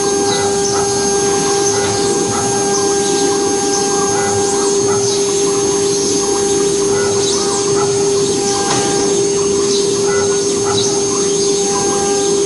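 CNC router spindle running with a steady high whine while the bit cuts a board under its brush dust hood, with a hiss of cutting noise around the tone.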